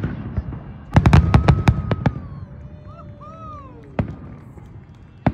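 Aerial fireworks display going off: a rapid volley of sharp bangs about a second in, then single bangs about four seconds in and near the end.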